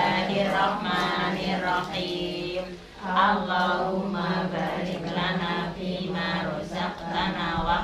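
A group of women's voices chanting a prayer together in unison, with a brief pause for breath about three seconds in.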